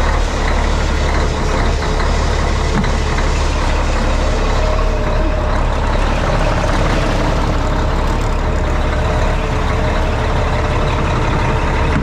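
Diesel engine of a 2007 Kenworth dump truck running steadily, with a heavy low rumble and a faint whine.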